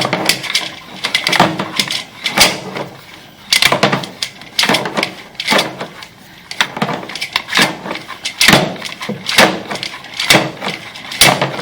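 Sewer camera push cable being fed and shoved through the drain line, with sharp knocks and clatters about once a second.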